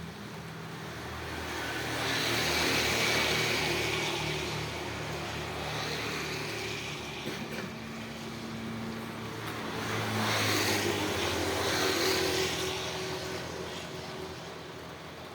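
Two motor vehicles passing one after the other, each swelling up to its loudest and then fading, over a steady background of rain.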